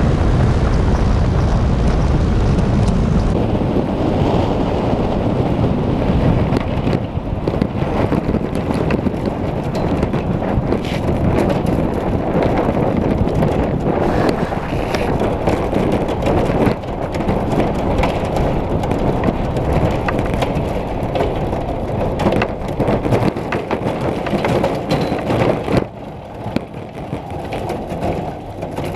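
Onboard sound of a pulse jet ice sled running over lake ice: a loud, steady rushing noise from the jet and the wind, dropping off about three seconds before the end.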